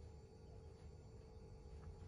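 Near silence: room tone with a faint steady hum and low rumble, and a couple of very faint ticks.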